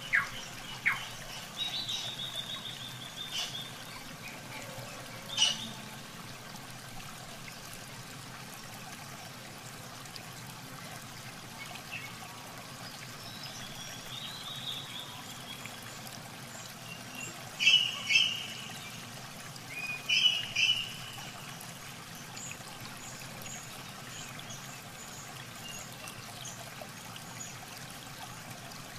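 Steady trickle of water, with short high bird chirps now and then, the loudest a few bright ones about two-thirds of the way in. A few sharp knocks in the first several seconds.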